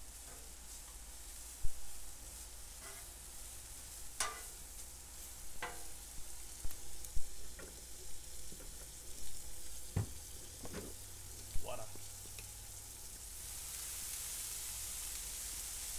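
Sliced onions and butter sizzling on a Blackstone flat-top griddle, with scattered sharp taps and scrapes of a metal spatula on the steel. Near the end the sizzle grows louder as liquid is poured onto the hot griddle.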